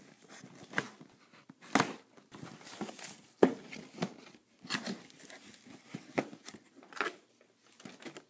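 Cardboard shipping box being opened by hand: packing tape slit and ripped, flaps pulled open, then packing paper and plastic crinkling and rustling as contents are pulled out, in irregular scrapes and rips.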